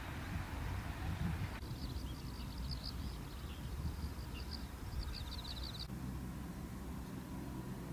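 Open-air ambience: a steady low rumble, with a run of high, rhythmic chirping in the middle that ends in a short rapid trill.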